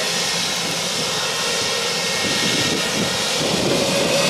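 Boeing 717's twin rear-mounted Rolls-Royce BR715 turbofan engines running on the runway, a steady jet hiss with a faint whine that grows a little louder near the end.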